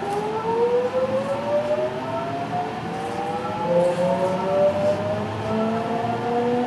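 JR West 207 series train's VVVF inverter traction motors whining as the train pulls away and accelerates, several tones gliding slowly upward together over the running rumble, heard from inside the carriage.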